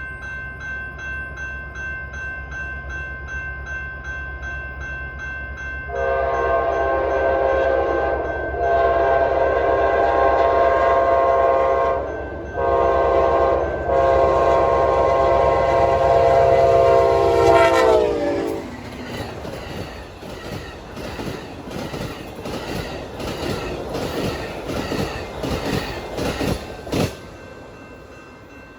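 Amtrak passenger train led by a P42 diesel locomotive: a low engine rumble, then the horn sounding long, long, short, long, its pitch dropping as the locomotive goes by. The wheels then click-clack rapidly over the rail joints as the cars pass, stopping a couple of seconds before the end.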